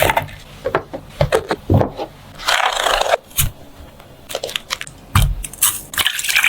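Kitchen prep handling sounds: irregular knocks and clatters with a short scrape near the middle and two heavier thuds.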